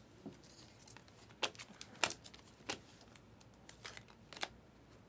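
Thick chromium trading cards flipped and slid off one another in the hands: faint rustling with a handful of light, sharp clicks.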